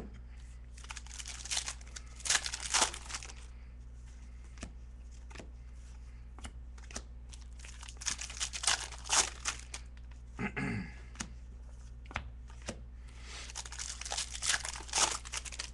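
Trading cards being handled close to the microphone: cards slid, flipped and rubbed against each other, with crinkling, in three bursts of rustling and sharp clicks. A steady low hum runs underneath.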